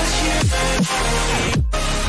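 Background electronic music with a deep kick drum that falls in pitch on each beat. It cuts out for a moment about one and a half seconds in.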